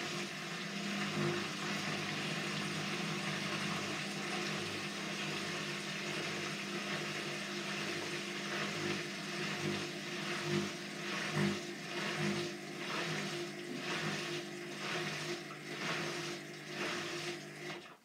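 Hotpoint front-loading washing machine running in its rinse: water rushing with a steady hum, a rhythmic sloshing pulse about twice a second setting in about halfway through, then cutting off suddenly at the end.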